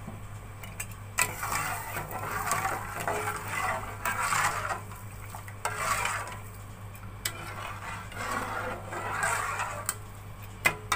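A perforated steel spoon stirring milk in a steel pot, scraping round the pot in repeated gritty swishes as freshly added sugar is stirred in. A couple of sharp clinks of spoon on metal come near the end.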